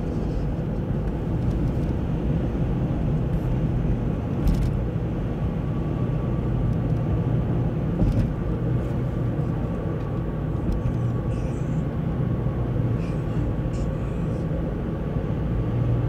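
Car driving on dry asphalt: steady low road and engine rumble with a faint steady whine, and a light knock about four seconds in and again about eight seconds in.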